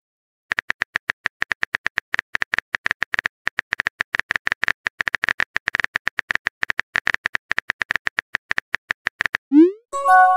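Phone keyboard typing sound effect: a rapid, even run of short tapping clicks, about ten a second, lasting most of nine seconds. Near the end a quick rising whoosh marks the message being sent, followed by a short chime of several tones.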